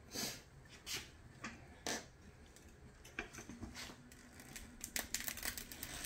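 Scattered light clicks and knocks of metal tire irons and rim protectors against a dirt bike wheel rim as the tire bead is levered off, the taps coming closer together near the end.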